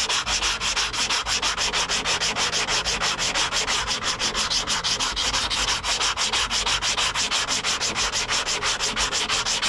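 80-grit sandpaper on a rounded hand sanding block rasping over cured body filler in quick, even back-and-forth strokes. This is blocking the filler through a dry guide coat, where leftover guide coat marks low spots that still need sanding down.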